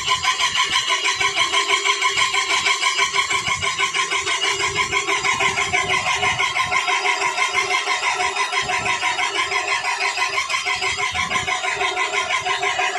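Prince Senior 7-inch power grinder running steadily, with a rhythmic pulsing whine that beats about four to five times a second.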